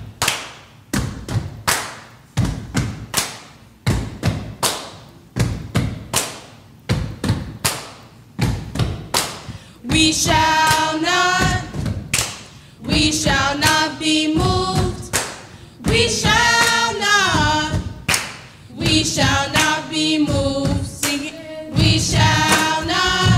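A steady beat of thuds and taps, about two a second, that plays alone for about ten seconds. Then children's choir voices come in singing a gospel chant over the beat.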